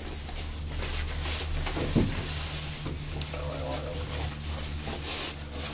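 Ride inside a moving gondola cabin: a steady low hum with a hiss over it, and one sharp thump about two seconds in.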